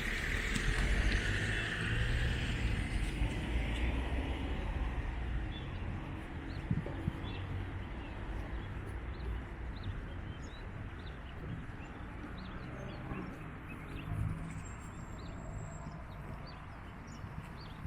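Outdoor ambience during a walk: a low rumble with a hissing noise in the first few seconds, easing off, then faint scattered ticks.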